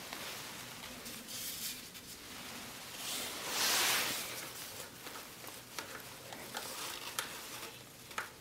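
Close-up handling of a small glass dropper bottle: a loud rasping rustle about halfway through as the plastic dropper cap is twisted off, with light taps and a few sharp clicks near the end as the dropper draws liquid from the bottle.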